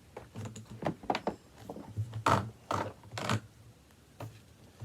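Irregular clicks and knocks, about ten in four seconds, from hands handling the plastic hose and body of a Dirt Devil Breeze upright vacuum cleaner.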